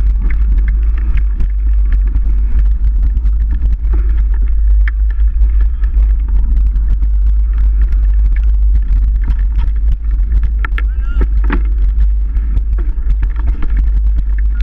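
A mountain bike ridden over rough ground, its rattles and knocks coming thick and fast over a heavy steady rumble of wind buffeting the microphone. A brief squeal comes a few seconds before the end.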